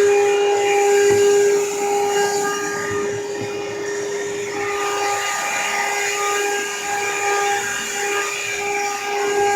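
Vacuum cleaner running steadily on the stairs: a constant motor whine over the rush of sucked air, dropping slightly in level about a second and a half in.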